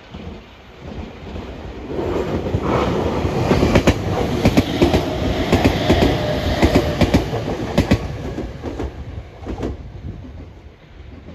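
Meitetsu 3500 series electric train passing through the station without stopping, its wheels clattering over rail joints and points. The noise builds over the first two seconds, is loudest in the middle, and fades away near the end.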